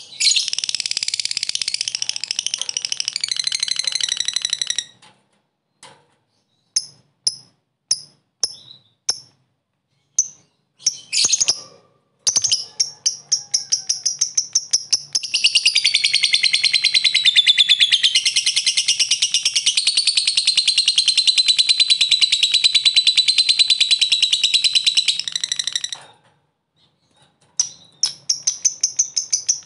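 Lovebird ngekek: long runs of shrill, very rapid chattering notes. The first run lasts about five seconds, then comes a string of single chirps, then a long unbroken run of about fourteen seconds, and another run starts near the end.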